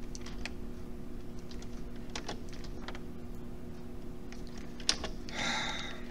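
Scattered light clicks and taps of a stylus on a pen tablet as numbers are handwritten, over a steady low electrical hum. A short rasping noise comes about five seconds in.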